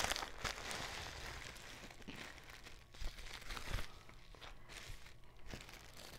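Plastic packaging crinkling and rustling as a poly mailer is emptied and small clear plastic bags of Lego parts are handled, with a couple of sharper knocks midway.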